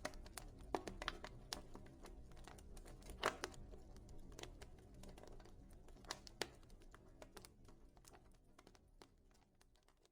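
Wood fire in a fireplace crackling, with irregular sharp pops over a low rumble of flames; the sharpest pop comes about three seconds in, and the sound fades out gradually toward the end.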